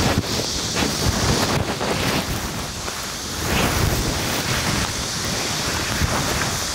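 Corn leaves brushing and rustling against the camera as it pushes through the plants, mixed with wind buffeting the microphone: a dense, uneven rustle that swells and eases.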